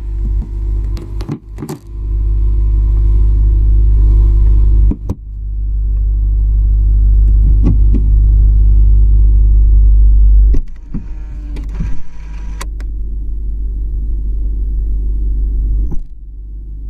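Low road rumble inside the trunk of a 2018 BMW 750i (G11) on the move, broken by scattered sharp clicks and a scratchy creak about eleven seconds in. The creaking comes from the rear suspension and is the abnormal noise being chased.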